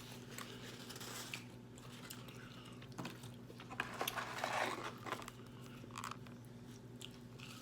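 People chewing and biting into McDonald's fast food, with scattered small crunches and mouth clicks and a busier stretch of chewing in the middle, over a steady low electrical hum.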